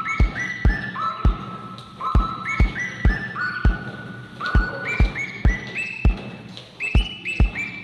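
Recorded music: a high, whistle-like melody of held notes, each sliding up into pitch, over a deep kick-drum beat.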